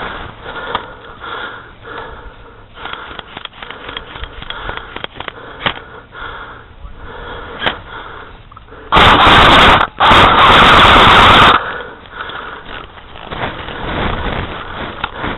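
Soft rustling and scattered clicks, then about nine seconds in two loud, distorted bursts of harsh noise, together about two and a half seconds, that overload the recording.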